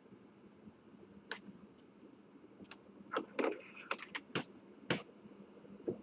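A series of about ten sharp, irregular clicks and knocks, bunched most closely in the middle, over a quiet steady background.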